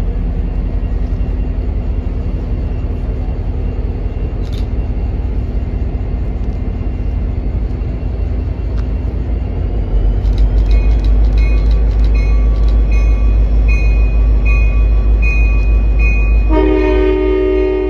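Diesel locomotive rumbling low, its engine getting louder about ten seconds in as a bell starts ringing in steady strokes. Near the end the locomotive's horn sounds a loud, multi-note chord.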